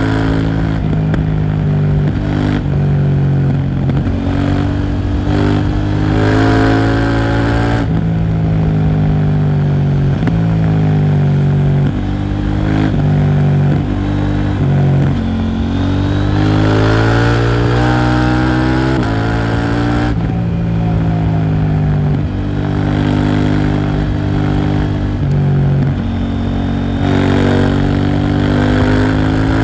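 KTM Duke 790 parallel-twin engine through a Leo Vince exhaust, ridden hard: it revs up through the gears with sharp drops in pitch at each upshift, then winds down on the brakes with downshifts, several times over.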